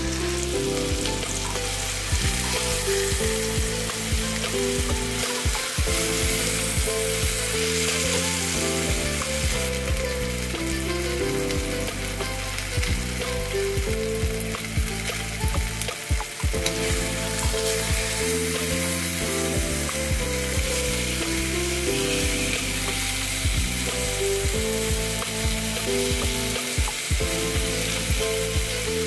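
Pork tenderloin searing in hot oil in a frying pan, a steady sizzle throughout. Soft background music plays underneath.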